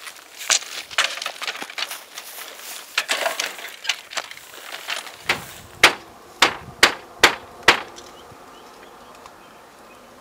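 Scuffing and handling noises as a small petrol engine is set onto a bamboo train's wooden deck, then five sharp knocks in quick succession, about two a second, as it is seated in place.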